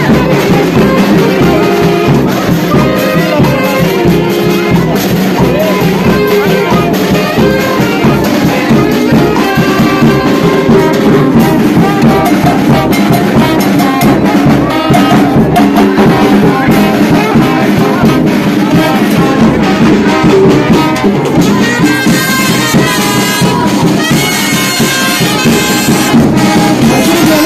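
A live band with saxophone and brass plays loud dance music without a break.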